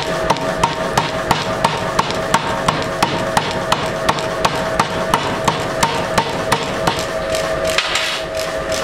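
Pneumatic power hammer striking a red-hot metal blank in a steady rhythm of about three blows a second, drawing the metal out, over a steady machine hum. The blows stop near the end.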